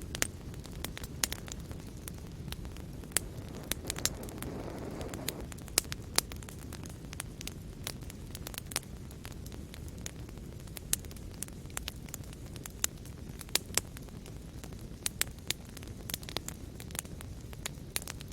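Wood fire crackling: a steady low rush of flames with frequent sharp pops and snaps, and a brief swell in the flame noise about four seconds in.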